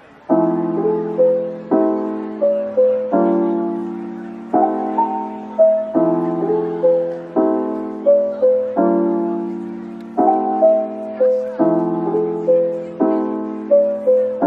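Background piano music: soft struck chords changing about every second and a half under a simple repeating melody, starting a moment in.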